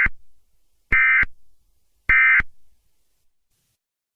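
Emergency Alert System SAME end-of-message data bursts: three short, harsh digital tone bursts about a second apart, signalling the end of the alert.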